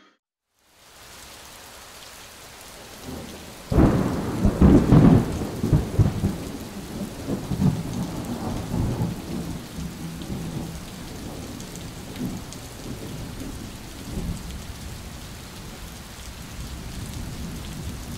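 Thunderstorm: steady rain, with a loud clap of thunder about four seconds in that rumbles on for several seconds before easing back to rain alone.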